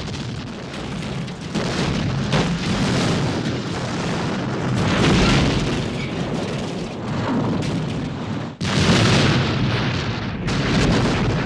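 Movie sound effects of explosions: a continuous rumbling din broken by several sudden blasts. The loudest comes about nine seconds in, right after a brief drop.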